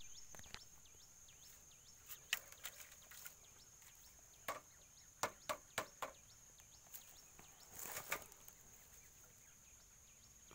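Dry pine needles, leaves and twigs crunching and snapping underfoot: a few scattered cracks, then a quick run of them about halfway through and another near 8 s. Under it runs a steady high insect drone, with faint repeated bird chirps.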